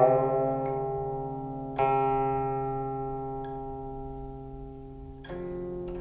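Background music on a plucked string instrument: a few single notes, each plucked and left to ring and slowly die away, the first bending in pitch as it rings, another about two seconds in, and a softer one near the end.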